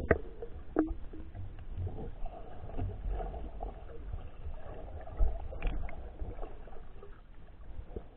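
Muffled water movement and low rumbling heard through a camera held underwater, with a few soft knocks and clicks, the loudest right at the start and about five seconds in.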